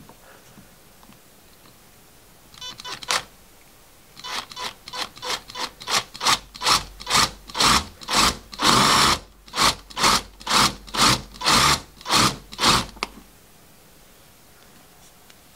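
Electric drill with a Forstner bit boring a flat-bottomed hole into a wooden block, cutting in short bursts about twice a second with one longer run in the middle. A brief first burst comes a few seconds before the main run, and the drilling stops about two seconds before the end.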